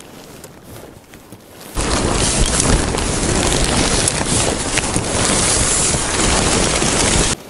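Loud wind buffeting on a close microphone, mixed with the crackling rustle of stiff, partly frozen umbrella-tent fabric being pulled open by hand. It starts abruptly about two seconds in and cuts off suddenly just before the end.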